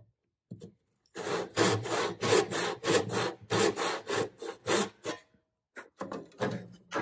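Brass-backed Spear & Jackson tenon saw cutting across the grain of a softwood block with quick, even back-and-forth strokes, about four to five a second, sawing the side of a housing joint down to the marking gauge line. The sawing stops about five seconds in.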